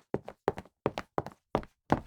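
Footsteps of a person walking quickly, about three steps a second, each step a sharp double tap of heel then toe.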